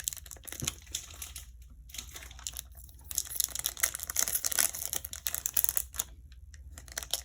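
Foil Pokémon booster pack wrapper crinkling and tearing as it is handled and opened, with small clicks and rustles of the cards inside.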